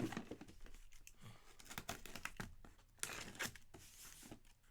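Packaging being torn open and crinkled as a sealed case of trading-card boxes is opened, with a sharp knock at the start and scattered handling clicks.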